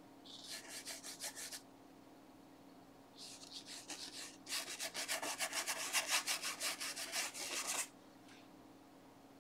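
Flat paintbrush scrubbing burnt umber oil paint across textured canvas in quick back-and-forth strokes, about six a second. A short burst of strokes comes first, then after a pause a longer, louder run that stops about eight seconds in.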